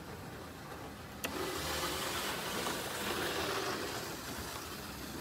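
A click about a second in, then a steady whirring hiss: a 00-gauge model locomotive running along the track once a little power is turned up from the stop position.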